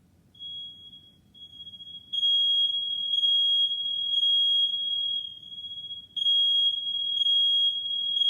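Smoke alarm sounding on test: a steady, high-pitched tone that comes in faintly under a second in and turns loud about two seconds in, swelling and dipping in level.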